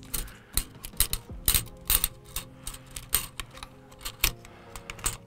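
Irregular light metallic clicks and small knocks of AR-15 parts and tools being handled.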